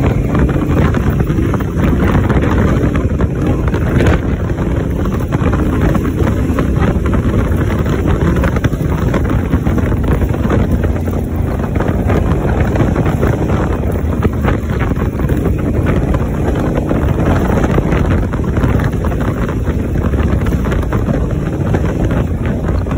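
Honda Africa Twin adventure motorcycle riding along a dirt road, its engine running steadily under heavy wind noise on the microphone.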